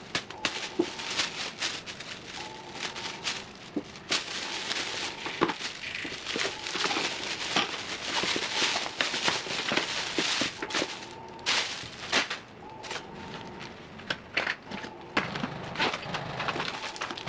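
Thin plastic shopping bag rustling and crinkling as it is opened and items are pulled out, with scattered light knocks as things are handled and set down.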